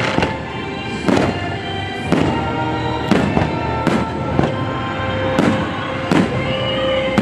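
Fireworks going off in a string of sharp bangs, about one a second, over the show's soundtrack music with long held notes.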